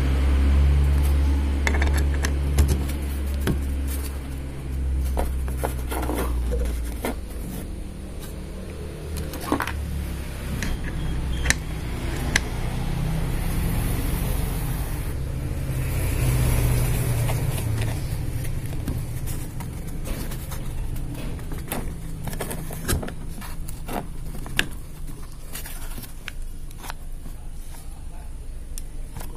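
Sharp metal clicks and clinks as centrifugal clutch shoes are fitted onto a motorcycle clutch carrier plate by hand. Under them, a vehicle engine rumbles nearby, rising and falling, loudest at the start and again about halfway through.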